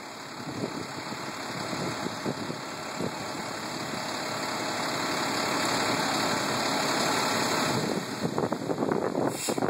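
Fire truck's engine running steadily while it pumps water into the hose lines, growing louder for about eight seconds and then dropping off suddenly. Wind then buffets the microphone in gusts.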